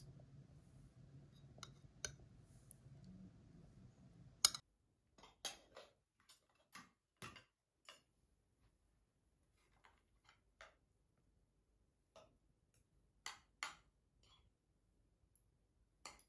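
Scattered light clicks and taps at an irregular pace. For the first four and a half seconds they sit over a faint low hum that cuts off suddenly.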